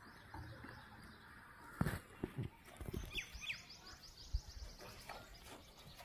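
Small birds chirping, with two short falling chirps and a quick run of high chattering notes around the middle, over a few scattered dull thumps, the loudest about two seconds in.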